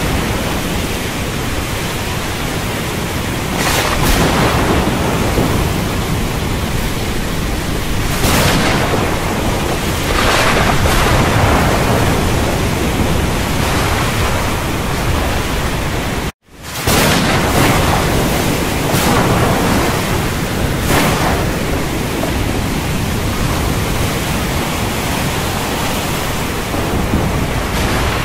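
Thunderstorm: a steady wash of heavy rain with low rumbling and swells every few seconds. The sound drops out for an instant about sixteen seconds in.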